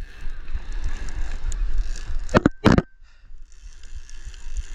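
Wind buffeting the microphone with a steady rumble and hiss, broken by two loud knocks close together about two and a half seconds in.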